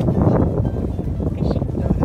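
Strong wind buffeting the microphone: a heavy, ragged low rumble, with background music underneath.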